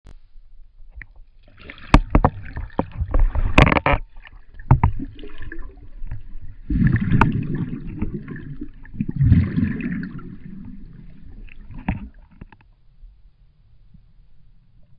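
Underwater sound picked up by a swimmer's handheld camera: water rushing and gurgling around it in several bursts, with sharp clicks and knocks from the camera being handled. It dies down to a faint low hum about two-thirds of the way through.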